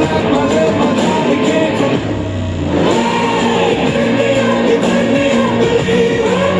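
A rock song with singing, guitar and bass played through a pair of Sony SRS-XB10 Bluetooth speakers. About two seconds in the band briefly thins out to a held low bass note before the full mix returns.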